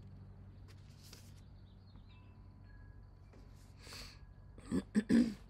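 Quiet room with a steady low hum and faint scattered clicks from handling paper pattern charts, then a few short, louder rustling knocks near the end as the next chart is picked up.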